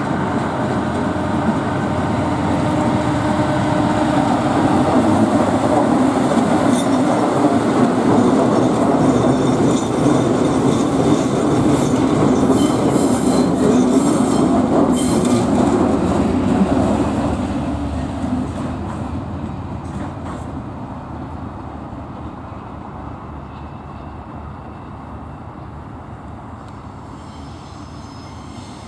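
Class 68 diesel locomotive passing with a train of container wagons: a loud, steady engine hum, then the wagons rolling by with wheels clicking on the rails, fading away over the last ten seconds or so.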